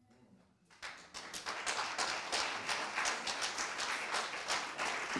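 Audience clapping in response to a poem's last line: a short hush, then scattered claps about a second in that quickly fill out into steady applause.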